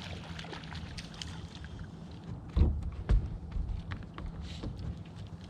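Steady low hum of a boat motor, with scattered small clicks and two heavy thumps about two and a half and three seconds in.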